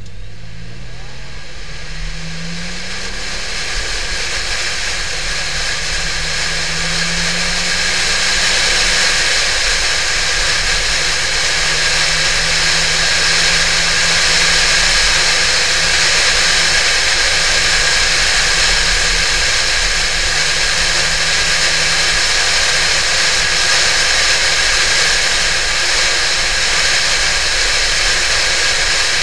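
Porsche 911 (996) flat-six engine pulling hard, its pitch rising over the first few seconds and again a few seconds later, then holding steady at speed. A heavy rush of wind and road noise builds as it speeds up and then stays loud.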